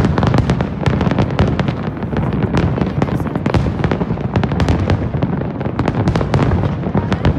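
A large aerial fireworks display with many shells bursting at once: a continuous low rumble of booms overlaid with sharp bangs and crackles, several a second.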